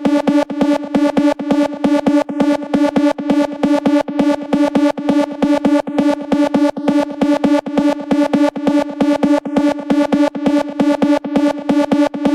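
Electronic background music: a synthesizer repeating one steady note in quick, even pulses.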